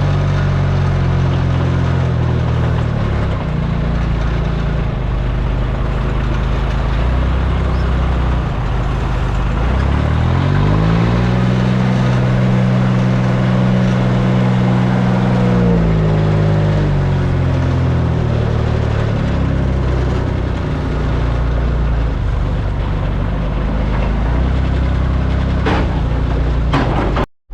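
An engine running steadily. About ten seconds in its revs rise, hold higher for around five seconds, then drop back to a low run.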